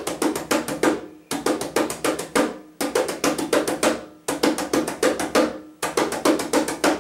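Conga played with the alternating palm-and-fingers (heel-toe) stroke, in five quick runs of even strokes about a second each with short pauses between.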